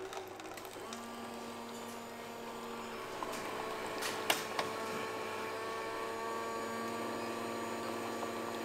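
Franke automatic coffee machine running as it makes a drink, dispensing coffee into a paper cup: a steady mechanical hum that starts about a second in, with a couple of short clicks about four seconds in.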